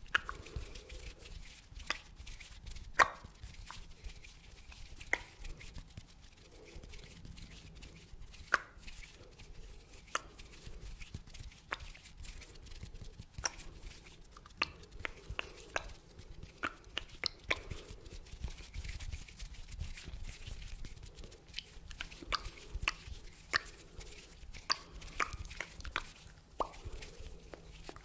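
Close-miked ASMR mouth sounds: wet tongue and lip clicks, pops and smacks, coming irregularly one or two a second.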